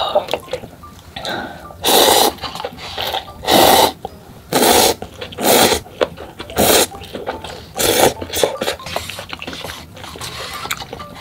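Loud slurping of instant noodles eaten with chopsticks: about six hard slurps roughly a second apart, followed by softer mouth sounds near the end.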